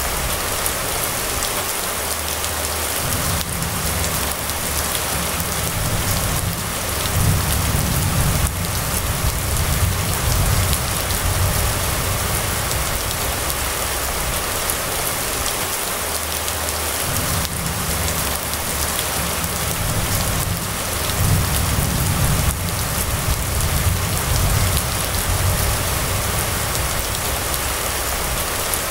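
Steady rain falling on a wet road and roofs, a dense even hiss with a few scattered ticks. A low rumble swells twice underneath it, lasting several seconds each time.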